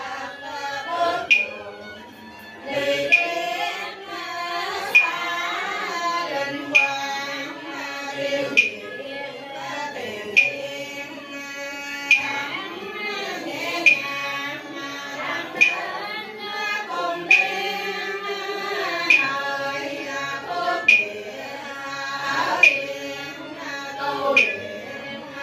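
Voices chanting Cao Đài ritual prayers in a sung, melodic style, kept in time by a sharp percussion stroke about every two seconds.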